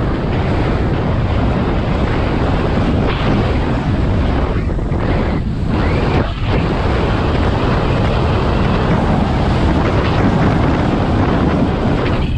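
Wind buffeting the microphone of a helmet-mounted camera on an electric scooter ridden at speed. It is a loud, dense rumble that eases briefly a few times near the middle.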